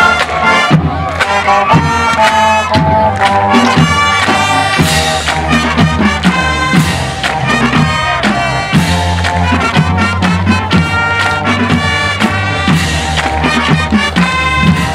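School marching band playing a brass-and-drum tune with a steady beat.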